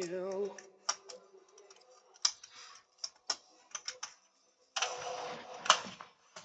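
Scattered sharp clicks and taps, then a short burst of noise with one loud knock in it near the end.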